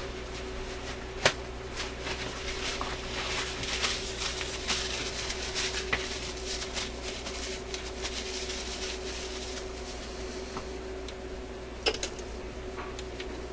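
Rustling and rubbing of a rag as grease is wiped off the fingers, with a sharp click about a second in and a couple of small clicks near the end, over a steady low hum.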